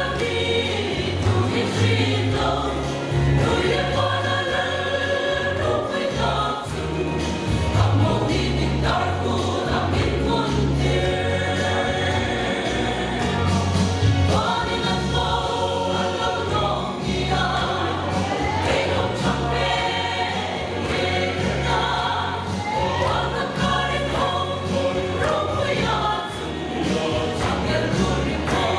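Mixed choir of women's and men's voices singing a gospel hymn together in harmony, steadily throughout.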